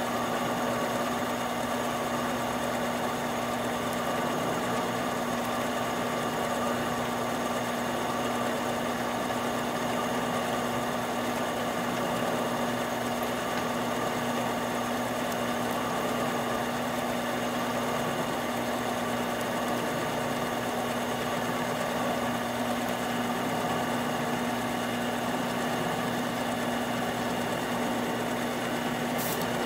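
Harbor Freight 7x10 mini lathe running at a steady speed while taking a turning cut on a metal bar, its motor and gear train giving a constant hum with a steady low tone.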